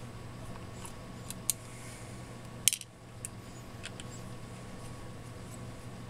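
Light clicks and taps from a 2.5-inch laptop hard drive in its metal mounting caddy being handled, with one sharper click a little under three seconds in. A steady low hum runs underneath.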